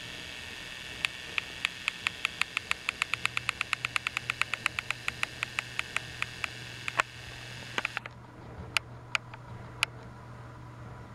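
Battery-powered Trackmaster toy engine's motor whirring with a rapid rhythmic clicking, about four clicks a second and quickening. The whir cuts off suddenly about eight seconds in, leaving a few single clicks and a low hum.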